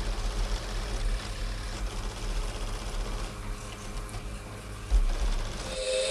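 Low, steady mechanical rumble like a running engine, with a sudden thump a little before five seconds in.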